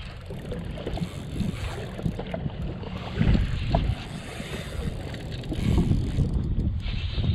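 Wind buffeting the microphone in gusts, an irregular low rumble on an open jet ski on the water, with a few small knocks.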